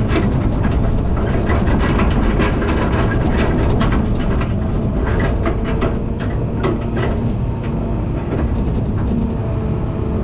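Farm tractor engine running steadily, with irregular metallic rattling and clanking throughout.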